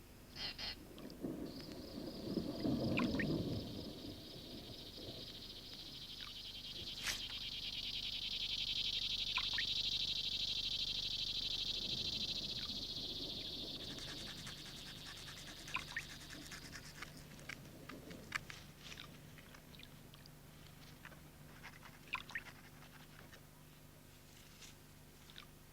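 A high, fast-pulsing trill from a calling animal, which swells over several seconds, holds, and fades out about two-thirds of the way through. It sounds over quiet jungle ambience with scattered clicks and ticks.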